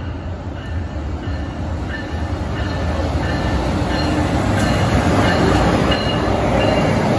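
NJ Transit ALP-45DP dual-mode locomotive, running on its diesel engine, passing close by with a multilevel passenger set: a deep engine rumble and wheel noise that grow louder as it goes by, with faint high wheel squeals.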